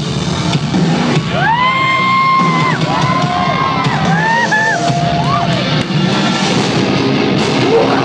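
Metalcore band playing live and loud, with a few held, gliding high notes standing out over the band through the middle of the passage.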